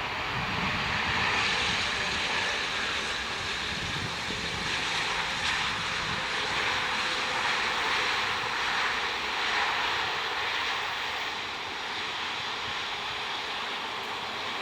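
Jet engine noise of a landing Airbus A330-200 with Rolls-Royce Trent 700 turbofans: a steady hiss-like rush that eases slightly near the end.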